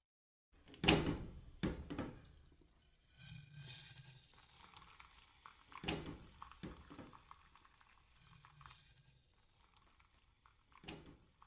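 Tea being made: a few sharp clinks and knocks of cups and utensils, with stretches of liquid being poured and stirred in between.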